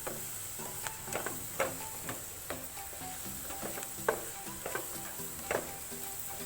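Stir-frying in a pan: a steady sizzle, with the spatula scraping and knocking against the pan about once a second as string beans are cooked.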